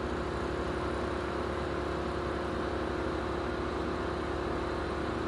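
An engine running steadily at one speed: a continuous hum with a constant tone and a low rumble underneath.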